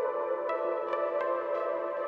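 Eurorack modular synthesizer playing generative ambient music. A Plaits-clone voice in modal resonator mode strikes four short notes from a quick random sequence over a sustained wash of held tones from a Clouds-clone granular processor playing its grains in reverse.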